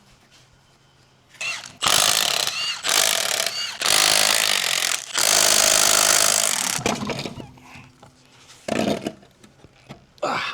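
A power tool running in loud bursts of one to two seconds, with a few shorter bursts near the end.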